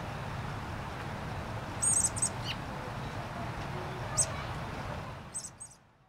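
American robin fledglings giving high, thin, squeaky begging calls to a parent for food. Short calls come in a cluster about two seconds in, again at about four seconds and once more near the end, and one call slides down in pitch.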